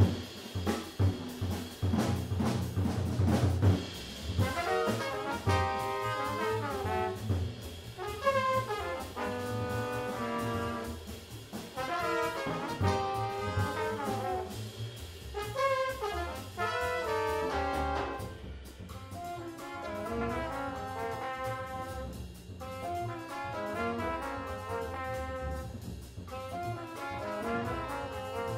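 Jazz quintet playing: drums and bass alone at first, then about four seconds in the horns (trumpet, trombone and saxophone) come in together with melodic lines over the rhythm section.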